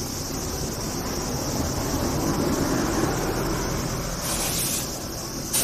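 Street traffic: a vehicle passing, its tyre and engine noise swelling to a peak about halfway through and easing off, over a steady high drone of insects.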